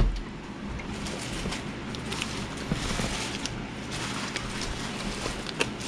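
Small mini beverage refrigerator running with a steady fan-like whir, just switched on to cool. A few light clicks and knocks sound near the start and near the end.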